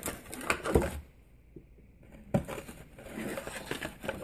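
Foam packing padding and its box being handled: rustling and clattering, a short quiet stretch, then a sharp knock about two and a half seconds in followed by more rustling.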